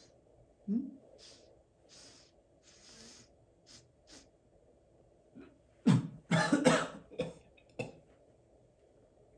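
A man sniffing a meatball in short sniffs, about five of them, then coughing several times, loudly, from about six seconds in.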